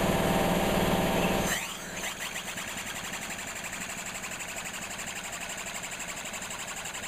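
Homemade single-acting engine with a copper-tubing cylinder, chuffing in a fast, even rhythm as it runs. For about the first second and a half a louder steady hum with a low tone covers it, then drops away.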